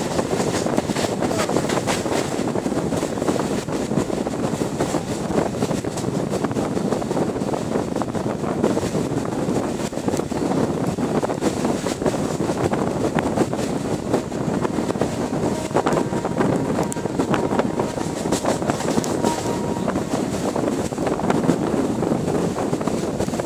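Passenger train coach running at speed: a steady rumble and irregular clatter of the wheels on the rails, with wind buffeting the microphone at the open door or window.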